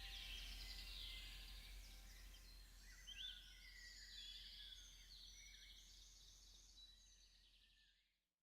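Songbirds singing in woodland: several birds' overlapping chirps and trills, faint, fading out to silence near the end.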